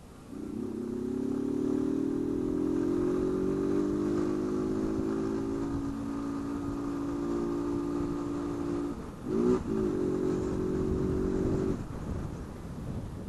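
Honda CG 160 Fan motorcycle engine, running without its intake hose (mangote), pulling under throttle with its pitch rising slowly. About nine and a half seconds in the pitch drops sharply and comes back, and near the end the engine sound falls away.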